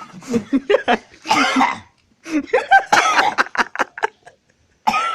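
A man coughing in rough, hacking bursts: one fit about a second in, then a longer run of coughs that stops about a second before the end.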